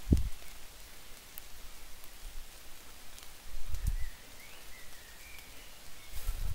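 Three dull low thumps and some leaf rustling as a climber is lowered on the rope, brushing against rock and foliage, over a light steady hiss. A bird chirps faintly a few times.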